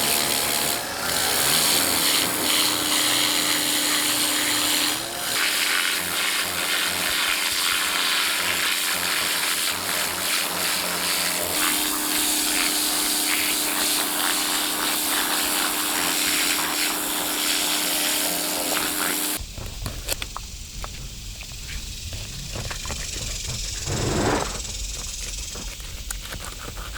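A motor-driven tool running steadily with a loud hiss and a steady hum while scaling a buffalo fish, cutting off suddenly about two-thirds of the way in. Quieter scraping and handling noise follows.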